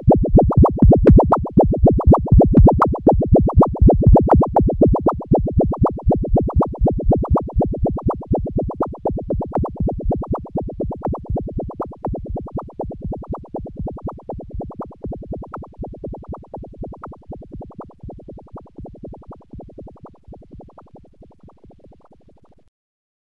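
Synthesized electronic tone pulsing in a fast, even rhythm, fading out gradually and stopping just before the end.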